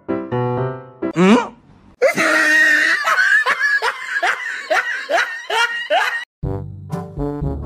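Comedy sound effects: a few short musical notes and a quick rising whistle glide, then a laugh of rapid repeated strokes, about three a second, lasting some four seconds. Music comes in near the end.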